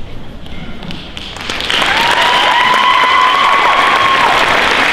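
Audience applauding, breaking out about a second and a half in. Over the clapping, one person gives a long, high-pitched cheer for a couple of seconds that drops in pitch at its end.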